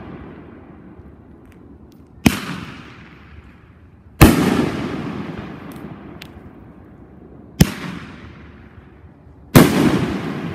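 Aerial shells from a 500-gram firework cake bursting overhead: four sharp, loud booms about two seconds apart, each trailing off in a rolling echo over a couple of seconds.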